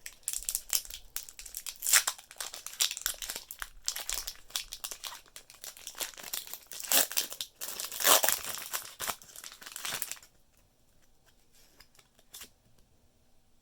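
Foil Pokémon booster pack wrapper crinkling and being torn open. It stops about ten seconds in, and a few faint clicks follow.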